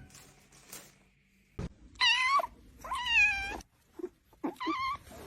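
Cat meowing: two drawn-out meows that fall in pitch about two seconds in, then a few shorter meows near the end.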